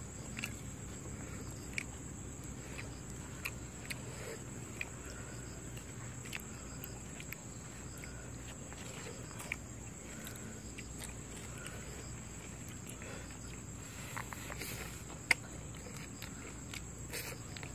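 Hands mixing rice and curry on disposable plates, with scattered light clicks and rustles and one sharper click near the end. Under them run a steady high-pitched whine and a low hum.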